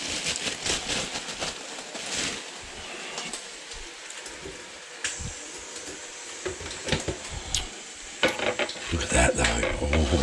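A plastic bread bag crinkling as it is handled, a few light clicks and knocks, then a spoon scraping butter across toast near the end.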